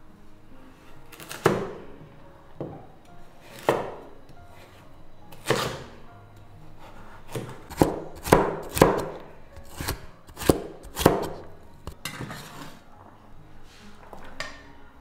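Cleaver chopping carrot on a wooden cutting board: single sharp chops a couple of seconds apart at first, then a quicker run of about eight chops halfway through.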